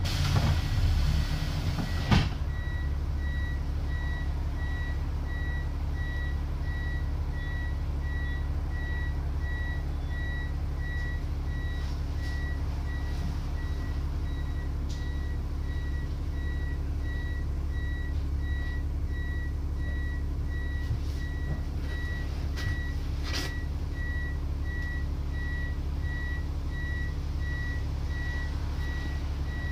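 Bus diesel engine idling steadily while an electronic warning beeper repeats without a break. A loud hiss of air for the first two seconds.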